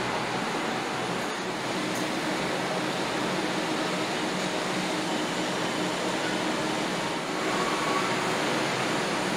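Steady factory machinery noise: an even hiss and hum with faint low steady tones, growing slightly louder about three-quarters of the way through.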